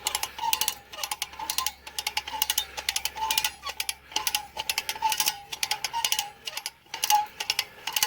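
Hand come-along ratchet clicking in rapid bursts as the handle is worked to tension the cable pulling a tree over.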